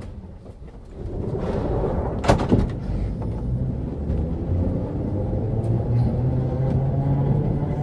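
Historic Berlin U-Bahn type AI motor car (built 1924/25), heard from on board, getting under way. A rumble swells about a second in, with a couple of sharp clanks about two seconds in, then a steady running rumble with a low tone that slowly climbs in pitch.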